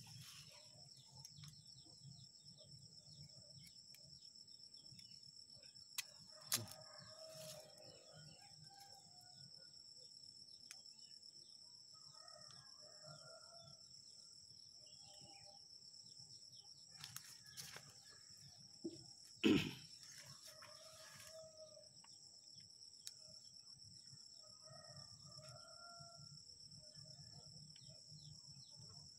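Faint chickens clucking and a rooster crowing, over a steady high-pitched drone. A couple of sharp clicks come about six seconds in, and a louder short knock about two-thirds of the way through.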